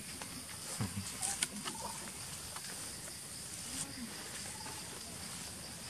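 Forest ambience: a steady high insect drone, with scattered soft clicks and rustles and a few brief faint calls from long-tailed macaques.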